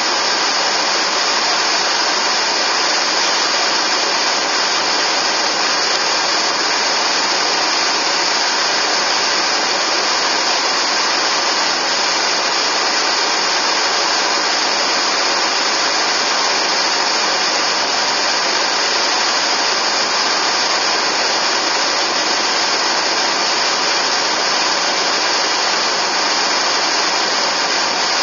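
Steady road noise from a moving car: an even hiss of tyres and wind that holds level throughout, with hardly any low rumble.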